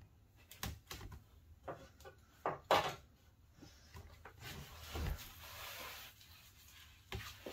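A paintbrush working polyurethane onto pine window trim: scattered light knocks and taps of the brush and hands against the wood, with a longer soft brushing swish about halfway through.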